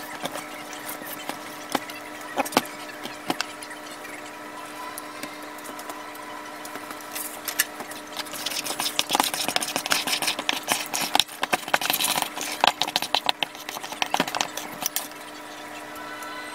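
A metal spoon scraping and clinking in a stainless steel mixing bowl as flour is stirred into a stiff dough. The clatter is sparse at first and turns dense and irregular about halfway through. A steady low hum runs underneath.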